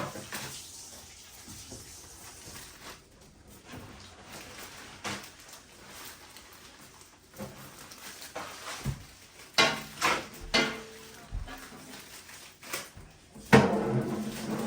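Kitchen clatter: scattered knocks and clinks of dishes and household items being handled, louder and busier in the last few seconds.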